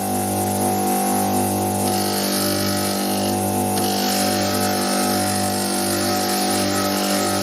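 Electric power tool running steadily at constant speed, a hum under a hiss.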